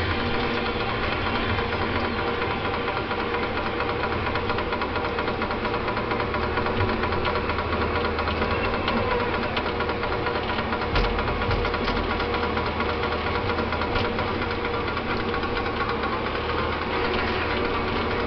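TimberPro 840 combo forest machine running steadily under load while its Waratah 470 harvester head works a tree, engine and hydraulics droning, with a few sharp knocks from the head about eleven and fourteen seconds in.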